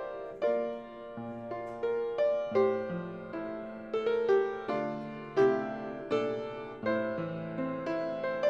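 Solo piano playing slow, gentle broken chords, a new note struck about every half second and left to ring.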